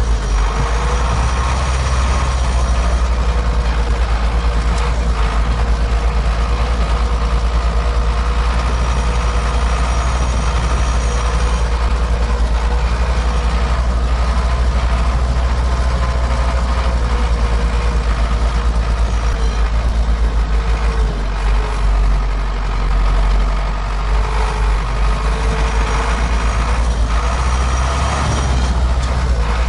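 Engine and running gear of a five-ton tracked all-terrain vehicle, heard from inside its metal hard-top cab while driving: a steady heavy drone with a wavering whine over it. The sound eases off briefly about two-thirds of the way through.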